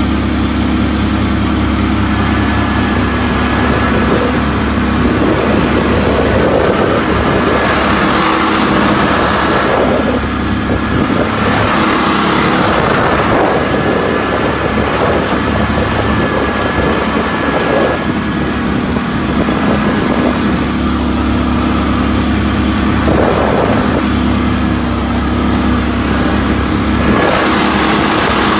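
Mud-Skipper surface-drive mud motor running steadily under way on a small boat, its gas engine's note shifting a few times as the throttle changes.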